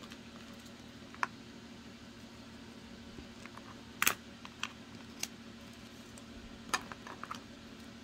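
A few scattered light clicks and taps from folded paper and a coin being handled on a cutting mat, the sharpest about four seconds in and another near the end, over a steady low hum.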